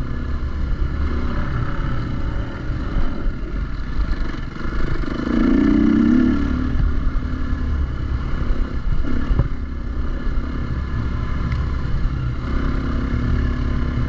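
Dirt bike engine running while being ridden, its revs rising and falling briefly near the middle.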